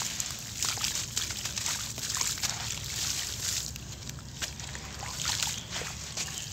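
Dry sand-cement lumps crumbled by hand into a shallow puddle of water: gritty crumbling with the crumbs splashing and sloshing in the water. There is a short lull about four seconds in.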